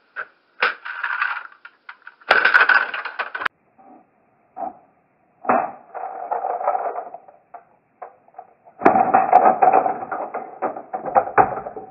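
A 2x2 Rubik's cube being turned fast in the hands, its plastic layers clicking and rattling in four quick bursts, the last and longest starting near the three-quarter mark.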